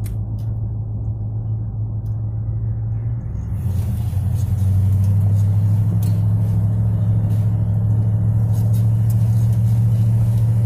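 The 1969 Ford F100's 390 cubic-inch V8 running as the truck drives, heard from inside the cab. About three and a half seconds in, the engine note drops a little in pitch and grows louder, with more hiss on top.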